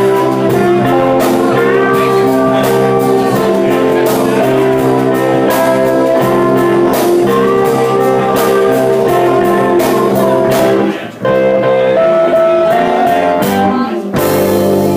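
Live blues band playing, with electric guitars, saxophone and electric keyboard. The music drops out briefly about eleven seconds in.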